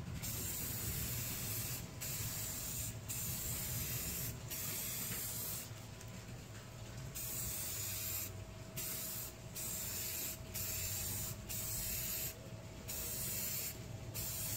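Aerosol spray can of matte clear enamel hissing in a series of sprays about a second long, with short breaks between them as the nozzle is released and pressed again.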